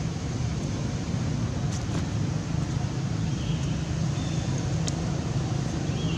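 Steady low outdoor rumble, with a few brief faint high chirps over it.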